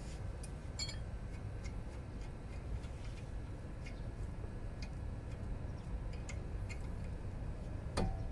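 Scattered faint clicks and taps at irregular intervals over a low background rumble, with a sharper, louder clack near the end.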